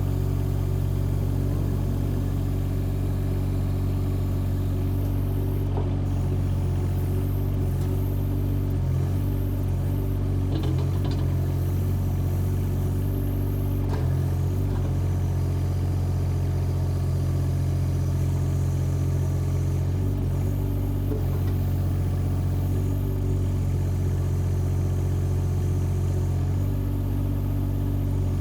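Compact track excavator's diesel engine running steadily, its note shifting slightly at times as the machine is worked, with a few light clicks about ten and fourteen seconds in.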